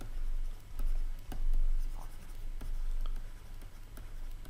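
Stylus writing on a tablet: a run of light taps and short scratches as a handwritten word is written, over a steady low hum.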